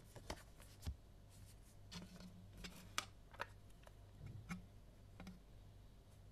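Faint scattered clicks and taps of a Maxell UR 90 cassette shell and its clear plastic case handled by fingers, with one sharper click about three seconds in.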